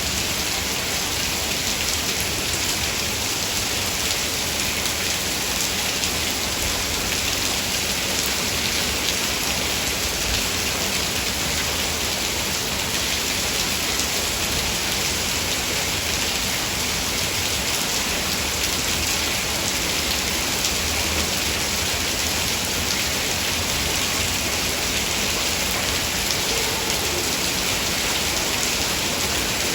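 Heavy rain falling steadily: a dense, even hiss of countless drops that holds the same level throughout.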